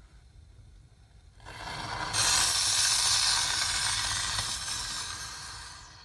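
Small firework spraying sparks with a loud, even hiss that starts about a second and a half in, holds for about four seconds, then fades out near the end.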